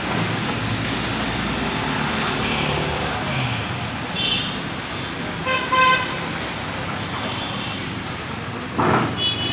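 Busy street traffic running steadily, with vehicle horns tooting several times, the loudest about six seconds in.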